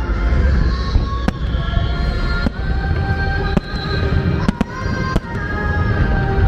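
Aerial fireworks shells bursting, about six sharp bangs spaced roughly a second apart, over music with sustained notes and a low rumble.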